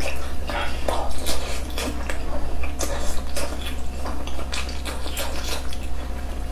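Close-up eating sounds: chewing on soft, tender braised pork and chopsticks clicking against the bowl, heard as irregular sharp ticks over a steady low hum.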